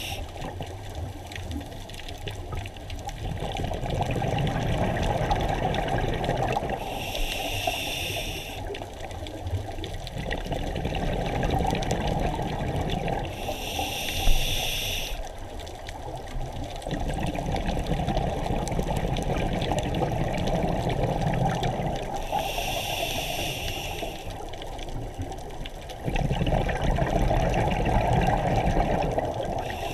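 Scuba diver breathing through a regulator underwater: a short hiss from the demand valve on each inhale, four times, and a longer bubbling rumble of exhaled air between them.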